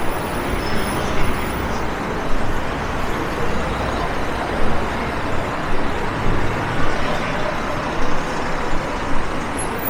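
Steady city road traffic: a continuous wash of passing cars and heavier vehicles, engines rumbling under the hiss of tyres, rising and falling slightly as vehicles go by.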